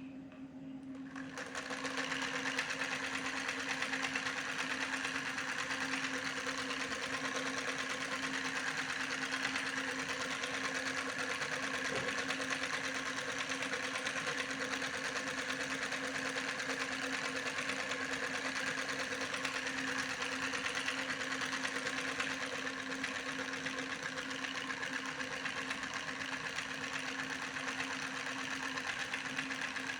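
A small motor starts up about a second in and runs steadily with a constant hum.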